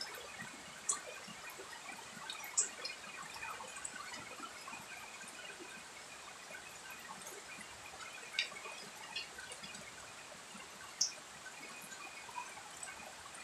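Steady rain falling on garden foliage and wet ground, with a handful of sharp drops splashing close by.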